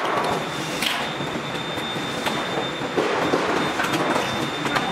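Steady factory-floor machinery din with a thin high whine, broken by a few light metallic clinks from work on a CNC router's aluminium T-slot table.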